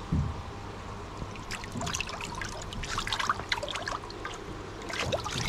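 Water splashing and trickling in short irregular bursts, busiest from about one and a half to three and a half seconds in and again near the end, after a dull knock right at the start.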